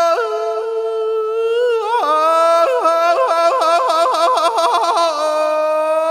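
A Khmer Surin kantrum singer's high male voice, unaccompanied. It holds a long note, steps up to a higher one, then breaks into rapid yodel-like warbling in the middle before settling on another held note near the end.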